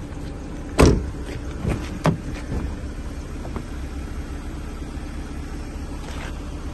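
Mercedes 230 TE's 2.3-litre four-cylinder petrol engine idling steadily, with no odd noises. A loud clunk about a second in and two lighter knocks around two seconds in come from the car's doors being handled.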